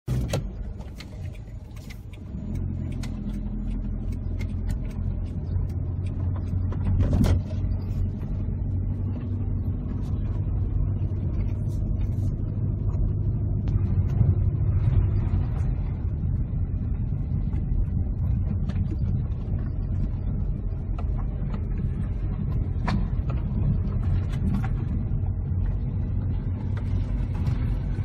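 Car engine and tyre rumble heard from inside the cabin while driving slowly over a rough, unpaved road, with scattered knocks and creaks from the bumps. The rumble grows louder about two seconds in, and a sharper knock comes about seven seconds in.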